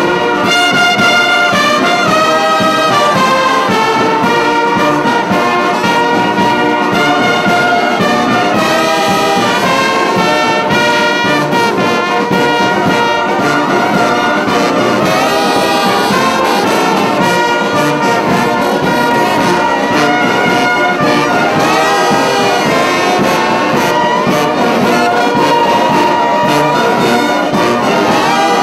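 Brass band of trumpets and trombones playing a melody in held notes, loud and continuous.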